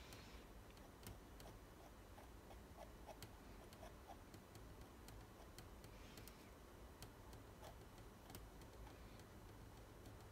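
Near silence with faint, irregular light ticks from a metal palette knife dabbing thick acrylic paint onto a stretched canvas.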